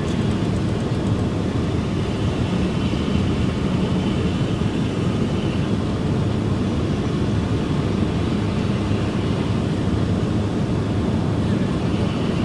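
Steady road and engine noise heard from inside a car driving through a snowstorm.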